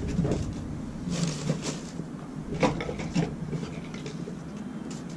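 Light clicks, scrapes and rubbing of a steel sawmill bandsaw blade being handled while it is folded into a coil and tied.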